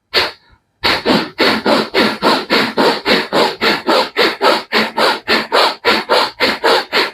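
Bhastrika pranayama (bellows breath): a man breathing forcefully through the nose in a fast, even rhythm, about three or four strokes a second, starting just under a second in after one single breath.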